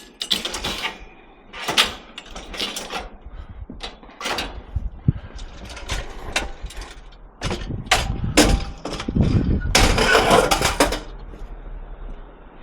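Scrap metal clanking and scraping as it is shifted and stacked on a loaded truck bed: a run of separate knocks and clangs, with a longer rattling scrape about ten seconds in.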